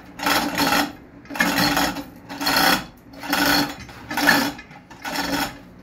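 Engine hoist being worked as the engine goes into the car: rasping mechanical strokes, about one a second, each lasting about half a second.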